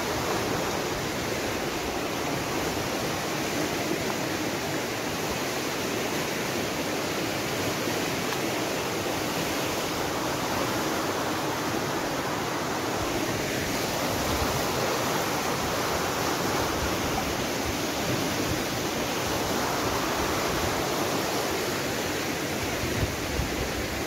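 A river rushing past: a steady, unbroken noise of fast-flowing water.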